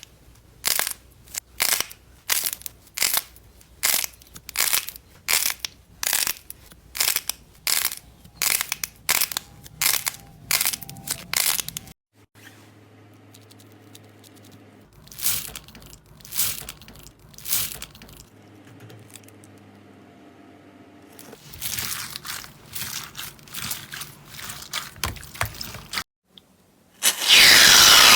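Slime being squeezed and pressed by hand, giving sharp crackling pops about two a second, in several short clips with cuts between them. About a second before the end a loud, steady crackling noise starts.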